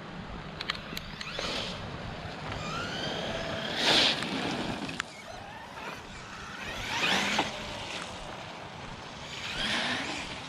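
Traxxas E-Revo 2.0 RC truck's electric motor whining in several bursts of throttle, the pitch rising and falling with each surge. The loudest surge comes about four seconds in, with others near seven seconds and near the end.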